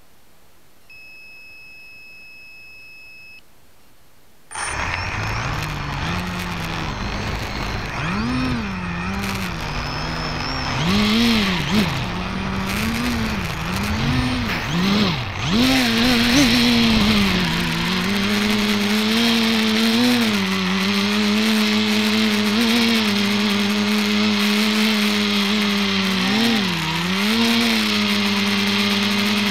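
An electric multicopter (ETFD2 flying disc) spins up its motors and propellers suddenly, about four and a half seconds in, with a pitched whirring hum. The pitch wavers up and down as it lifts off from the snow, then settles into a steady hover tone. Before that there is a steady high beep lasting a couple of seconds.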